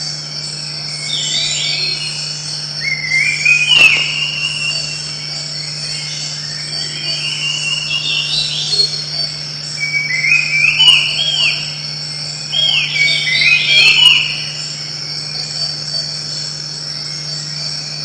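Tropical forest ambience: a steady high insect drone with bird calls that glide up and down in pitch, coming in bouts and loudest a few seconds in and twice in the second half.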